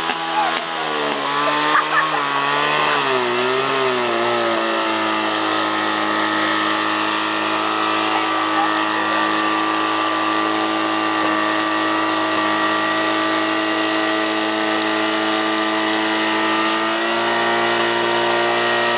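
Portable fire pump's engine running hard, its pitch swinging up and down for the first few seconds as the throttle is worked, then holding steady while it drives water through the hoses. The pitch steps up slightly near the end.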